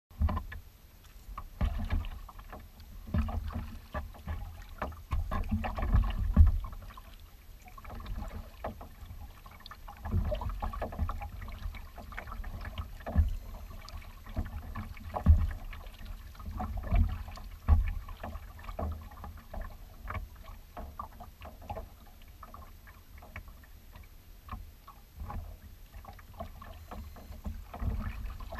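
Kayak moving over choppy open water: small waves lapping and splashing against the hull, with irregular low thuds and rumbles that rise and fall every second or two.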